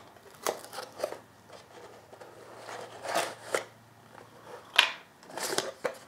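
Cardboard box and card insert being handled: irregular rustles, scrapes and light taps, with the loudest crackle about five seconds in.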